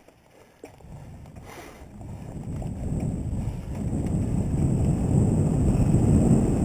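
Wind buffeting the camera microphone and mountain-bike tyres rumbling over a dirt trail during a ride, quiet at first and then growing steadily louder from about a second in, with a light click just before the rise.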